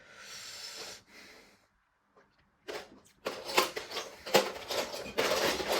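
Plastic Lego pieces being handled: a short soft rustle, then after a pause a run of rapid clicks and clatter from about three seconds in.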